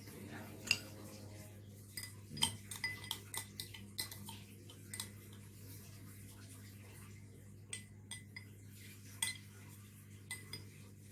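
Scattered clinks and taps of cutlery against dishware, in a quick cluster a couple of seconds in and a few more later, over a steady low hum.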